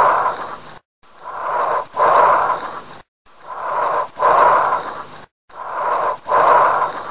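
Recorded breath sounds: a rushing, airy breath repeating about every two seconds. Each breath comes in two phases with a short gap between them, the second phase louder. About three full breaths are heard.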